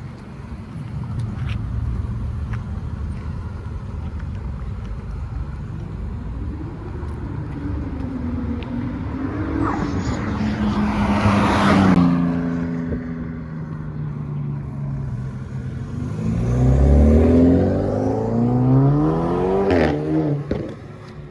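Car engines running: a steady low engine rumble, a car going past loudly about ten seconds in with its pitch falling away, then an engine accelerating, its pitch climbing for about four seconds before it cuts back near the end.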